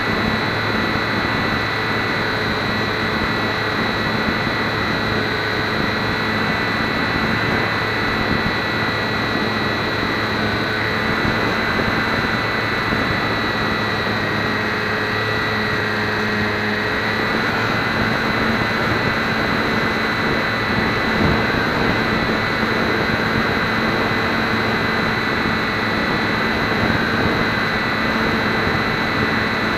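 A HobbyZone Champ micro RC plane's small electric motor and propeller running steadily, heard up close from an onboard camera, with air rushing over the microphone.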